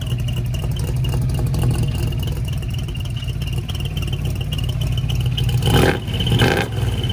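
Old Ford Bronco V8 idling with a turbo whistle in its exhaust pipe, which adds a thin, chirping high whistle over the rumble that sounds like a bird or a loose belt. The engine picks up briefly twice about six seconds in.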